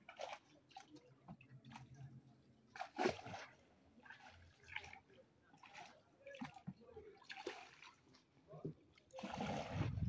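Canoe paddle strokes in floodwater: irregular splashes and water sloshing as the paddle dips and pulls, with a stronger splash about three seconds in and a longer one near the end.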